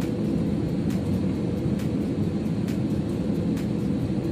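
Cabin noise of a Citilink Airbus A320 jet airliner on final approach just before touchdown: a steady low rumble of engines and airflow. Faint ticks come about once a second.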